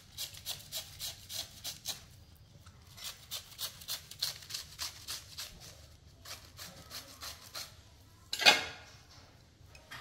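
Toothed metal shredder scraping a fibrous vegetable into strands. The strokes come in quick runs of about five a second, with short pauses between them, and there is one louder, sharper noise near the end.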